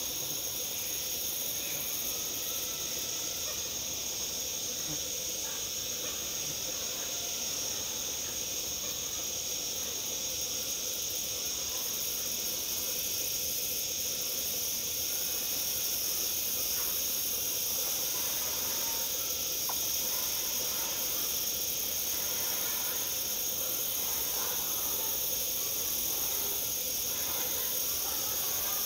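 Steady high-pitched insect chorus that runs on without a break, with a faint steady lower hum underneath.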